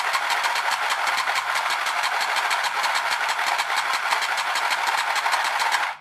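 A 1994 TOMY wire-controlled toy bird's small electric motor and plastic gearbox running, its flapping and walking mechanism clattering in a fast, even rhythm of clicks. The mechanical noise is loud enough to drown out the toy's cheep sound effect. It cuts off suddenly just before the end.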